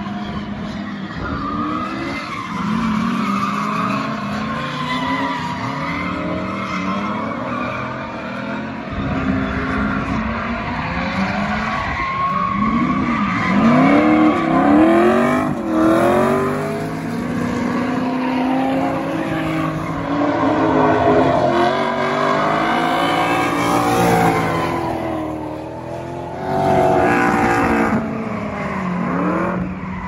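Audi V8 engine in a BMW E30 drift car, revved hard and let off again and again, its pitch rising and falling in quick swings, with tyres squealing as the car slides. The revving is loudest about halfway through.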